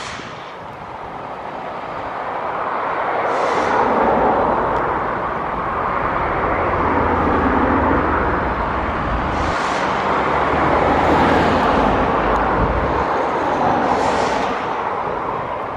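Airbus A220-300's Pratt & Whitney PW1500G geared turbofans running at taxi power: a steady jet rumble and hiss that swells over the first few seconds as the airliner taxis head-on toward the listener.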